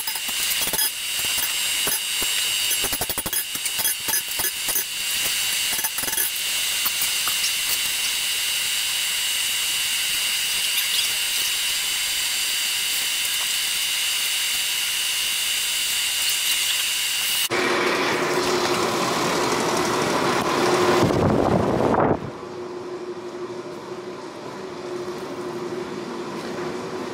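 Hand hammer striking hot 5160 steel on an anvil, a run of irregular blows over the first six seconds or so, over a steady whirring hiss with a high whine. Later the hiss gives way to a louder rushing noise, which drops to a quieter hum near the end.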